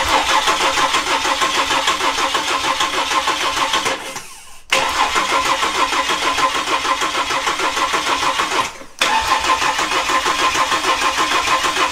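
Ford Barra inline-six engine turning over on its starter motor without firing, because the fuel pump is disconnected; it is being cranked to build oil pressure. It cranks in three runs of about four seconds each, with brief pauses between them.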